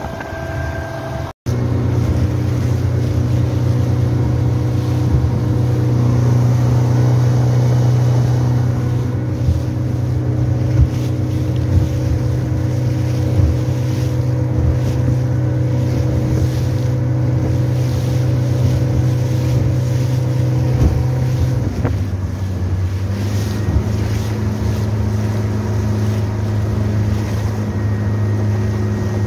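Motorboat engine running steadily at speed, with water rushing off the hull and wind on the microphone. The sound drops out briefly about a second in, and about two-thirds of the way through the engine note steps down slightly and settles at a new steady pitch.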